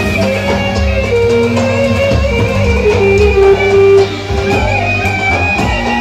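Roman havası dance music: held melody notes over a steady beat.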